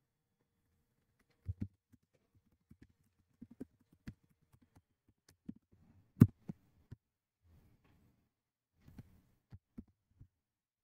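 Scattered keystrokes and clicks from a computer keyboard and mouse, heard as dull low taps with gaps between them, with one sharper, louder click a little past six seconds in.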